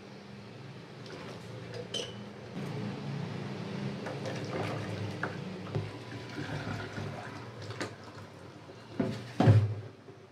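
Noodle-cooking water pouring and draining into a stainless steel sink from a pot, a plastic colander and a plastic basin, with light clatter of the cookware. There is a loud knock near the end.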